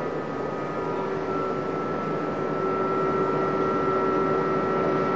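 Machinery running steadily: a constant low hum and a steady higher whine over a rough rumble.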